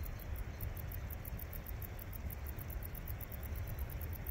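Insects chirping high-pitched in a fast, even pulse of about eight a second, over a low rumble.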